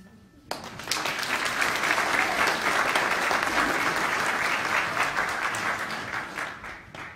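Audience applauding. The clapping starts about half a second in, holds steady, and fades away near the end.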